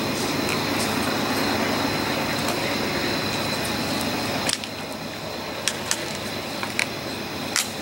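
Stationary intermodal freight train: a steady hissing, rumbling noise that drops off suddenly about halfway, followed by a few sharp metallic clicks.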